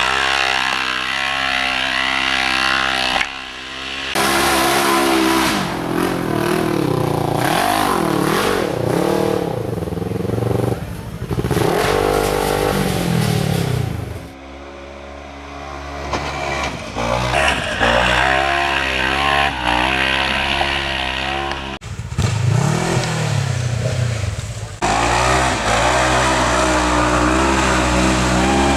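Side-by-side UTV engines revving hard as the machines climb a steep dirt hill, the pitch surging up and down again and again with the throttle. The sound changes abruptly several times as one run gives way to the next.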